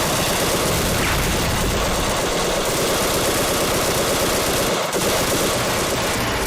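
Battle sound effects from an animated fight: a loud, continuous rapid rattle, like automatic gunfire or a running chainsaw.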